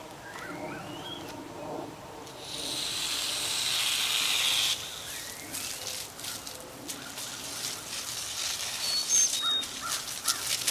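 A garden hose spraying water onto a horse: a steady hiss starts about two seconds in and cuts off sharply near the middle, followed by weaker, uneven spattering. Birds chirp in the background.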